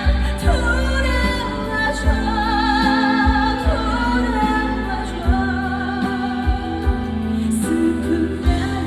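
Live trot song through a PA system: a female voice singing with wide vibrato over a backing band, with bass and a steady drum beat.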